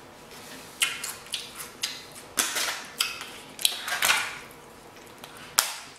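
Close-miked eating sounds: a metal fork clicking and scraping against a black plastic takeout bowl of pasta, a quick run of short clicks and scrapes for about four seconds with one more near the end, along with chewing.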